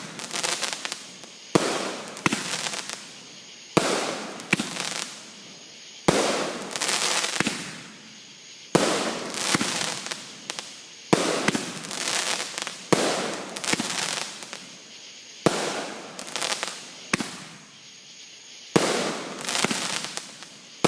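Fireworks going off in a steady barrage: a sharp bang every second or two, some in quick pairs, each followed by a rush of noise that fades away.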